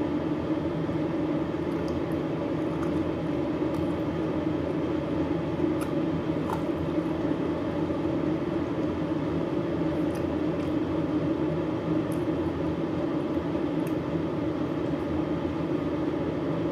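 Steady mechanical hum with an even level throughout, with a few faint clicks of chewing now and then.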